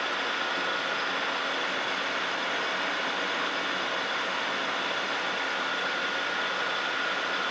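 Metal lathe running steadily while a carbide insert tool takes a light, lubricated facing cut across the end of a metal bar: an even hum and high whine from the lathe's drive over the hiss of the cut.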